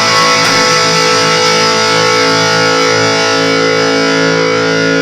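Electric guitar on its bridge pickup, played through overdrive: a single chord struck just before and left ringing, slowly fading.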